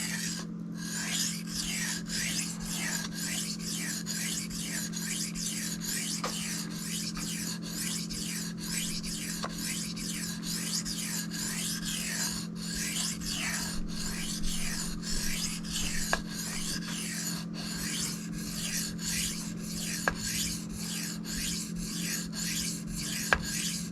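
Steel knife blade stroked back and forth across a Shapton Kuromaku water stone while sharpening: a steady rasping scrape, about two strokes a second.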